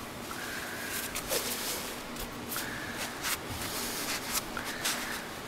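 Shop rag wiping and handling around the bare cylinder bores of a Toyota 2JZ engine block: rubbing, light knocks and clicks, with a few short high squeaks about half a second each.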